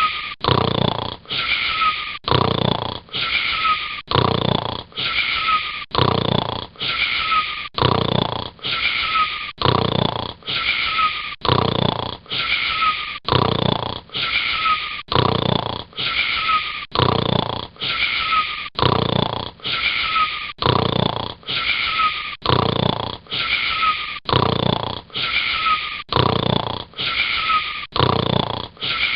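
Snoring: a wheezy, rasping breath repeating very regularly about once a second, each with a short whistling note that falls in pitch.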